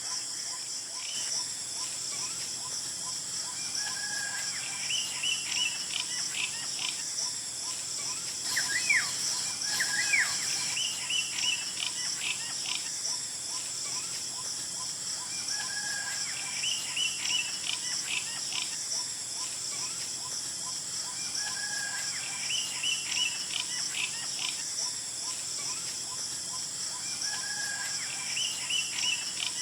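Golden oriole calls: a short phrase of a lower note and then a quick run of higher notes, repeating about every six seconds, with a couple of swooping whistles about nine seconds in. Under it runs a steady high drone of insects.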